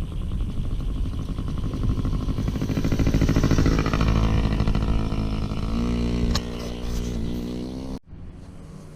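Yamaha PW50's small two-stroke single-cylinder engine running, its note dropping about halfway through and settling to a steady lower pitch. The sound cuts off abruptly near the end.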